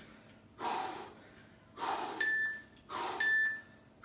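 Hard, forceful breathing from a man straining through a hollow-body ab hold, one heavy breath about every second. From about halfway through, three short electronic beeps a second apart sound over the breaths: a workout interval timer counting down the last seconds.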